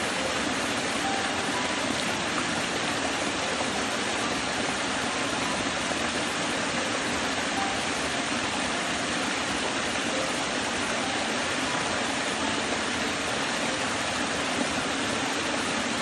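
Small woodland stream cascading over low rock ledges into a shallow pool: a steady, even rush of running water.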